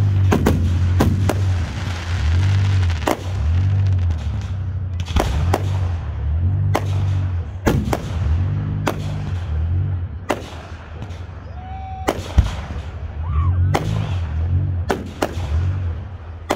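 Aerial fireworks shells bursting in a quick, irregular string of loud bangs that thin out and grow quieter after about ten seconds.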